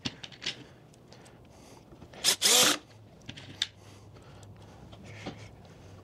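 A cordless drill run in one short burst about two seconds in, its motor winding down in pitch as the trigger is released, while self-tapping screws are driven into a wooden mounting board. Faint clicks and handling sounds before and after it.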